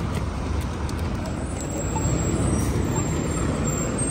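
City street traffic noise: a steady rumble of vehicle engines and tyres, with a faint high squeal coming in about a second and a half in.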